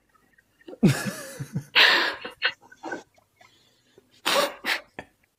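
Several people laughing hard in short breathy bursts, some muffled behind their hands. There is a first run of bursts about a second in and another near the end.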